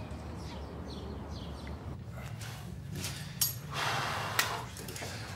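Quiet steady ambience, then a few short knocks and a rustling shuffle of people coming in through an apartment front door with heavy bags.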